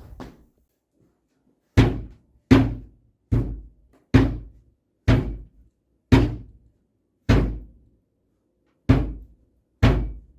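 Nine heavy thuds or knocks, roughly one a second, each dying away quickly. The gaps are uneven, with a longer pause before the last two.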